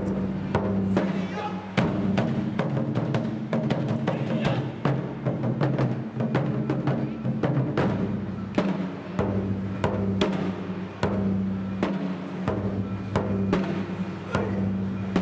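Japanese taiko drums played live in a fast, dense rhythm of strikes, over steady low sustained tones that break off briefly twice.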